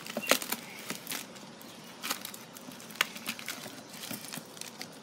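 Plastic bag rustling and crinkling as it is peeled off a block of ice with coloured pencils frozen into it, with a few sharp clicks.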